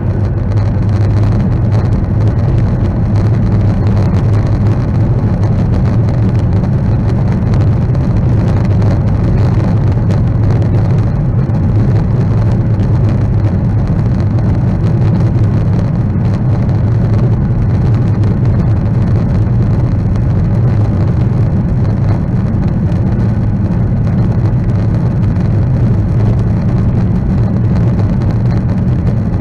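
Boeing 737-900ER's CFM56 jet engines at takeoff thrust, heard from inside the passenger cabin during the takeoff and climb-out: a loud, steady, deep rumble with airflow hiss.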